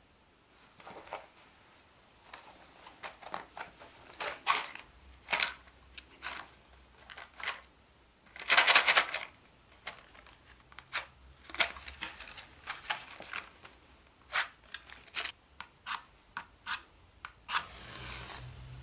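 Repeated scrapes and clicks of someone trying to strike a light, with one long scrape in the middle. One strike near the end catches and flares with a short hiss.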